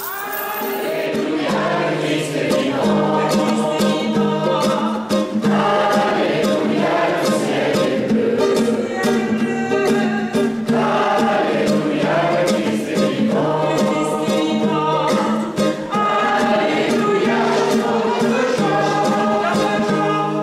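A congregation singing a hymn together, accompanied by guitar.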